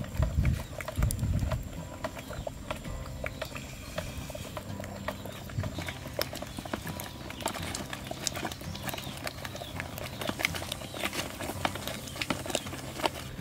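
Thick mango jam boiling in a large pot, popping and plopping irregularly as bubbles burst. A few heavy low thumps come in the first second or so.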